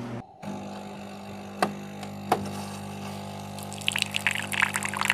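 Liquid being poured, a crackly splashing that starts nearly four seconds in and grows, over a steady low machine hum; two sharp clicks come before it.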